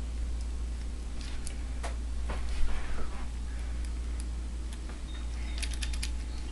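Small metal clicks and ticks from a short hook pick and tension wrench working the pins of a Master Lock No. 3 pin-tumbler padlock during single pin picking, with a quick run of several clicks near the end. A steady low hum runs underneath.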